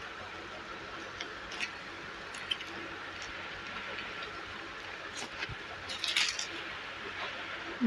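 Soft handling noises of a dress and its clear plastic packaging, with a brief crinkle of plastic about six seconds in, over a steady low hiss.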